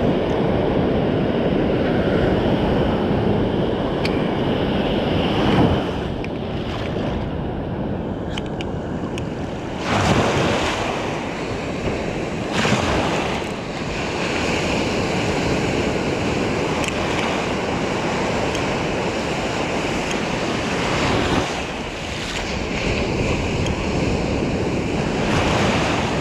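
Ocean surf washing in around the feet in shallow water, a steady rush that swells louder several times as waves break and sweep in, with wind buffeting the microphone.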